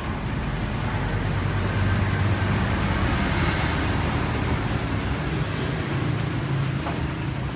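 Street traffic: motorbike and car engines running past, a steady low hum that swells about two seconds in.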